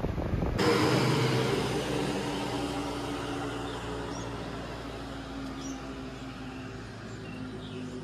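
Road and wind noise inside a moving car, cut off suddenly, then a road vehicle's engine hum and tyre noise fading steadily away as it recedes along the highway. A few faint bird chirps come through near the end.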